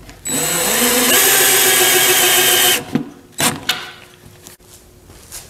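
Cordless drill running for about two and a half seconds, driving a screw into the plywood side of a tray, its pitch stepping up partway through. A few light knocks follow.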